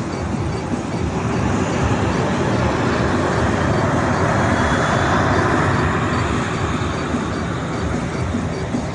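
Jet airliner engines, a steady rushing roar that builds to its loudest about halfway through and then slowly eases off as the aircraft passes.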